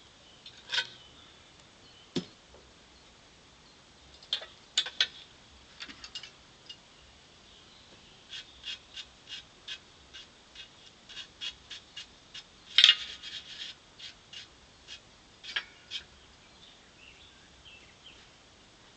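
A series of short, sharp clicks and taps, scattered at first and then about two to three a second through the middle, with one louder tap about two-thirds of the way through that rings briefly.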